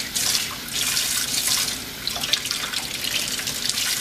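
Kitchen faucet running into a stainless steel sink, with water splashing into a metal measuring cup held under the stream. The sound dips briefly twice, about half a second and two seconds in.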